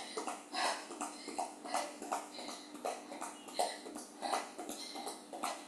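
Trainers landing on a thin exercise mat over a tiled floor in quick, light skipping footfalls, about four a second in an uneven, paired rhythm.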